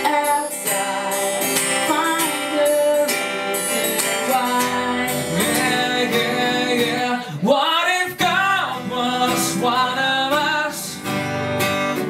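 Singing with a strummed acoustic guitar, a melodic vocal line that rises and falls over steady chords.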